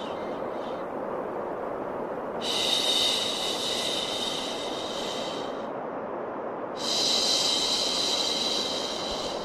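Baby-soothing 'shhh' shushing sound over a steady white-noise bed. Long shushes of about three seconds each repeat with a gap of about a second between them: one fades out at the very start, one runs from a couple of seconds in, and another starts near the end.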